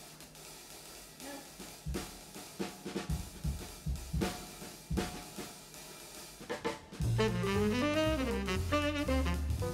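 Background music: a drum kit playing alone with snare, hi-hat and bass drum, then a bass line and melody instruments join about seven seconds in.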